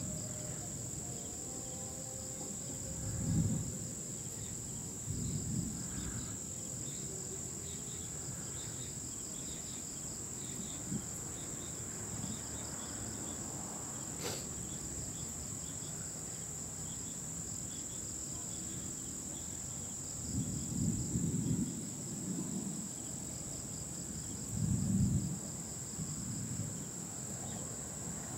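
Steady evening chorus of insects, crickets and the like, a continuous high-pitched trill with a fainter pulsing chirp below it. A few short low rumbles come and go, the loudest about three seconds in and near the end.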